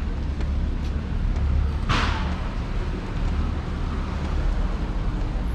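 Street traffic rumbling. About two seconds in comes a short, sharp hiss that fades over about a second.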